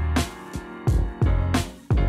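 Background music with a steady drum beat under sustained instrumental notes.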